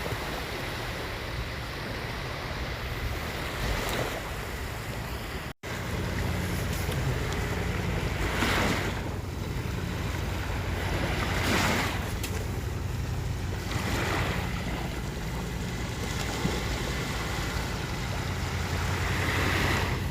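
Sea waves washing onto the shore, swelling every few seconds, with wind buffeting the microphone. A short cut about five seconds in, after which a steady low rumble sits under the surf.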